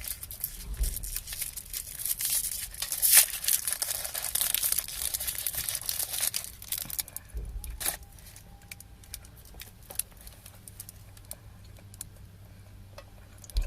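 An individually wrapped Quality Street coconut eclair being unwrapped: the plastic wrapper crinkles and crackles for about seven seconds. After that only faint, scattered rustles and clicks are left.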